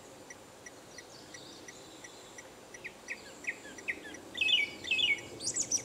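Male Japanese thrush singing: about halfway through a loud whistled phrase begins, a run of quick rising notes followed by repeated stepped two-note figures and ending in high rapid notes. Beneath it a faint even ticking repeats about three times a second.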